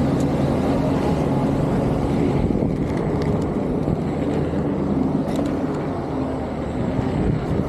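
Electric unicycle rolling over pavement: a loud, steady low rumble with a low hum that fades after the first two or three seconds, and a few faint clicks later on.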